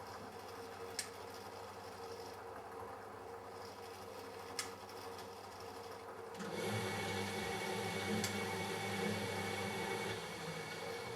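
Matura Autostatic 850 washing machine: a steady low hum with two sharp clicks, then about six seconds in a motor starts and runs louder with a deep hum and a high whine, easing slightly near the end.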